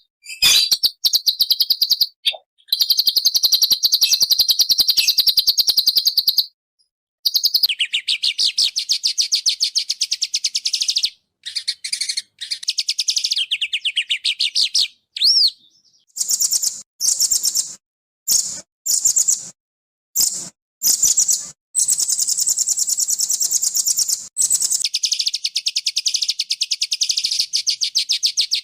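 Small songbird song: fast, harsh trills of rapidly repeated notes in bursts that start and stop abruptly, with a short rising whistle about halfway through.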